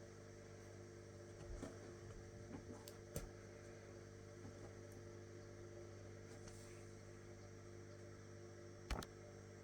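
Near silence: room tone with a steady faint hum and a few faint clicks, the sharpest about nine seconds in.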